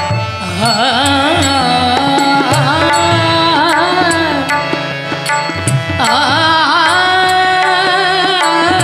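Indian devotional music between sung verses: an ornamented melody that slides and wavers in pitch over harmonium and tabla accompaniment, with a brief lull about two-thirds of the way through.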